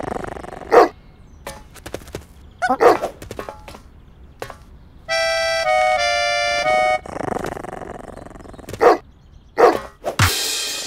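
Cartoon dog barking several times in short sharp barks. In the middle a short musical phrase of held notes steps up and down in pitch. Near the end comes a loud, noisy crash-like effect.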